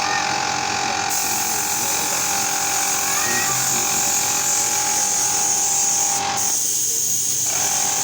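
A small electric motor running steadily with a whine and a hiss; the whine stops about six and a half seconds in while the hiss carries on.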